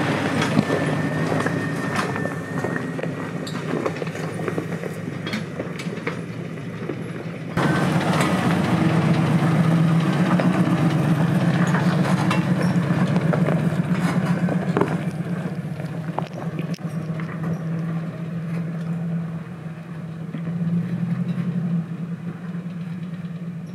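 Engines of lifted Jeep Cherokee XJs running at low revs as they crawl along an icy, snowy trail. About seven seconds in the sound changes abruptly to a louder, steadier engine note.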